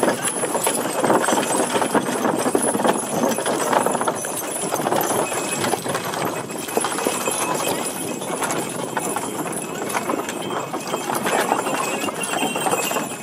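Draft horses' hooves clip-clopping on a dirt track, many overlapping hoofbeats in a steady clatter, as several horse-drawn wooden wagons roll past.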